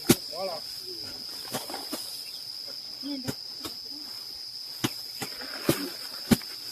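Steady high-pitched insect drone, like crickets, with about seven sharp knocks at irregular intervals, the loudest right at the start and about six seconds in.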